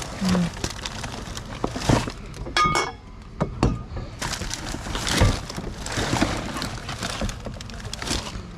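Junk being rummaged through and metal scrap handled: a series of knocks and clanks, one giving a short metallic ring about two and a half seconds in, with rustling and scraping between.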